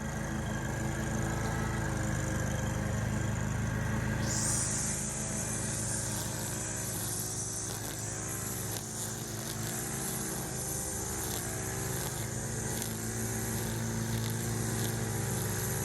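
Walk-behind lawn mower engine running steadily, its pitch wavering slightly as it works.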